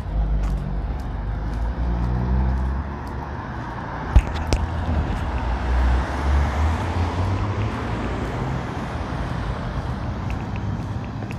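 A motor vehicle driving past on the street: low engine rumble, with tyre and road noise swelling to a peak about six or seven seconds in and fading away. A single sharp knock about four seconds in.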